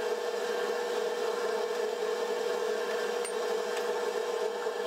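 Steady whir of a fume hood's exhaust fan, with a couple of light clicks about three seconds in.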